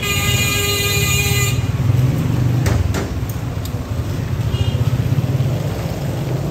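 Street noise: a vehicle horn sounds once for about a second and a half at the start, over a steady low rumble of traffic.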